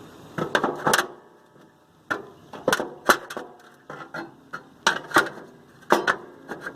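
Metal flavorizer bars of a Weber Genesis II gas grill being set back into the grill one after another: a string of irregular metal clanks and knocks, with light scraping between them.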